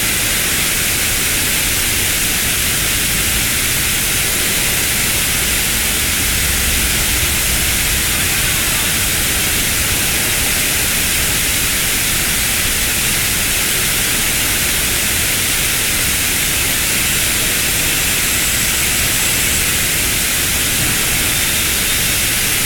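Water cascading down a stepped stone fountain wall, splashing from ledge to ledge as a steady, even hiss.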